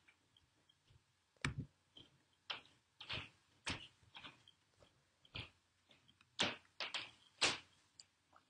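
Clicks and taps on a Dell laptop's keyboard and touchpad, about a dozen, spaced unevenly, some with a dull knock.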